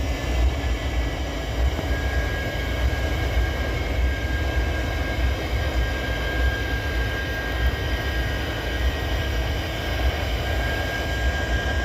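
EMD SD70 diesel-electric locomotive's engine running steadily just after start-up, a deep rumble with a steady high whine over it.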